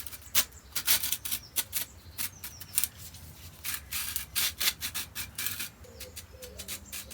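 Tesoro Bandido metal detector handle being worked onto its shaft joint: irregular rubbing and scraping strokes of a tight sliding fit, freshly sprayed with WD-40, which the owner thinks still has some grit inside.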